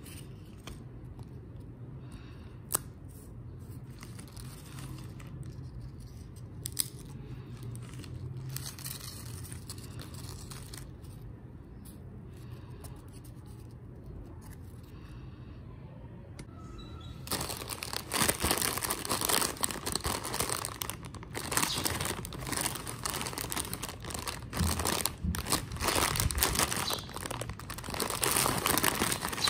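Foil-lined Lay's potato chip packet crinkling and rustling as it is handled, loud and continuous from a little past halfway. Before that there is only a faint low hum with a couple of sharp clicks.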